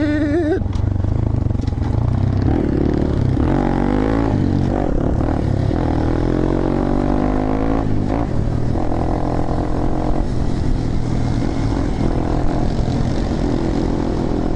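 Small single-cylinder motorcycle engines running on the move, the engine note rising and falling with the throttle.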